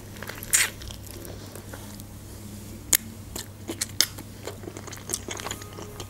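Someone biting and chewing chicken wings: scattered crunches and sharp mouth clicks, the loudest a crunch about half a second in.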